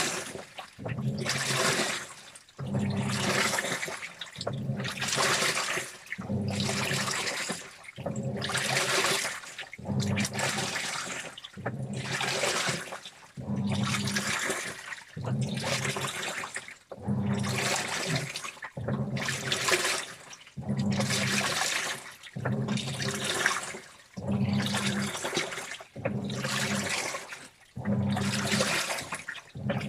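Washing machine in its wash cycle: the motor turns the drum in surges about every two seconds, each with a low hum and water sloshing through the clothes, with short pauses between.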